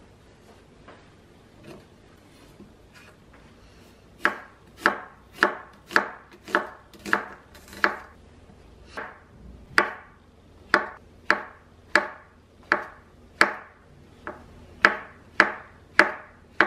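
Chef's knife slicing onion and button mushrooms on a bamboo cutting board, each stroke ending in a sharp knock on the wood, a little under two a second. The slicing starts about four seconds in, pauses briefly past the middle, then carries on.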